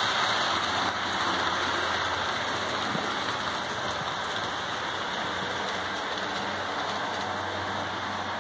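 HO scale model freight trains running on the layout's track: a steady rushing rattle of small wheels on rail, with a faint low hum under it.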